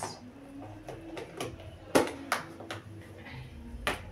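Scattered sharp clicks and knocks of groceries being handled: meat in plastic wrapping and tins being moved about, the loudest about two seconds in, with a few more shortly after and near the end.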